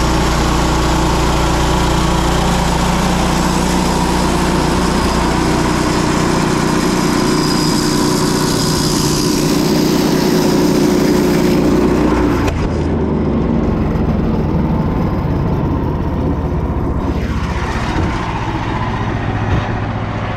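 Frontier OS27 bandsaw mill running, its band blade sawing through an ash log as the head is pushed along. About twelve seconds in the hiss of the cut drops away and the engine runs on steadily.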